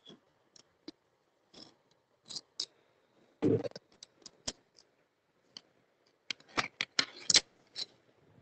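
Scattered short clicks, scrapes and rustles with silence between them, a louder thump about three and a half seconds in, and a quick run of clicks near the end.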